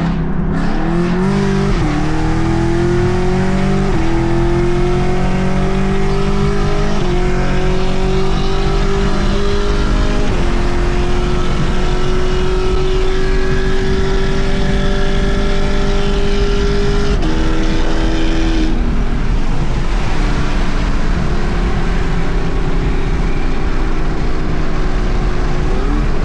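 Car engine and exhaust accelerating through several upshifts: the pitch climbs and steps down about every two to three seconds in the first ten seconds, then holds a steady cruise, with a lift or downshift about three-quarters of the way through.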